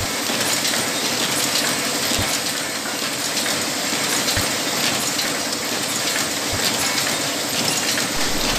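JPM Xenon high-speed open-cam paper cup machine running, a steady, dense metallic clatter of many fast clicks.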